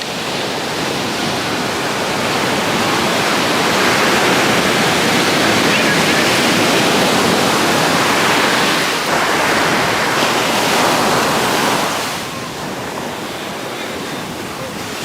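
Ocean surf breaking and washing up the beach. It swells over the first few seconds, holds, and eases off near the end.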